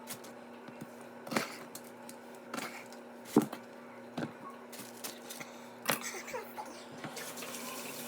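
A handful of light knocks and clicks at irregular intervals, the sharpest about three and a half seconds in, over a steady low hum.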